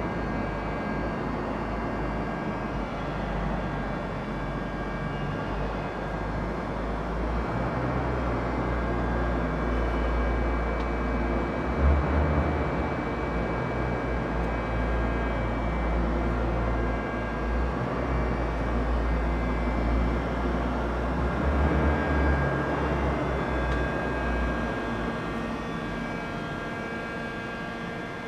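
Steady mechanical hum with a few faint, thin whining tones over a heavy low rumble that swells briefly about twelve and twenty-two seconds in.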